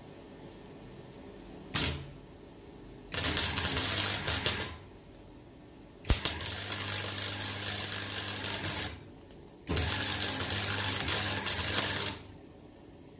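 Hand-held power sander running in three bursts of a few seconds each, switched on with a click each time, as a small bracket part is sanded to shape.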